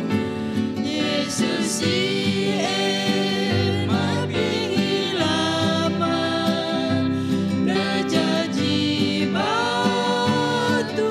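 Small mixed group of men and women singing a Christian worship song together, accompanied by an acoustic guitar.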